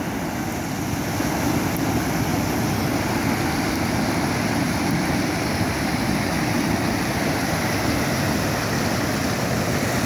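Heavy, muddy floodwater pouring over the rock ledge of a reservoir's overflow waterfall: a steady, loud rushing noise.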